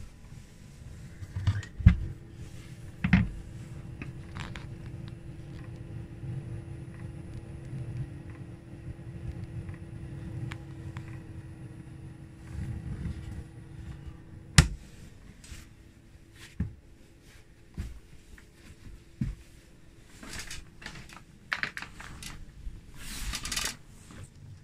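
Diesel parking heater running with a steady low hum. Several sharp knocks break in, the loudest about two, three and fourteen seconds in, and there is rustling handling noise near the end.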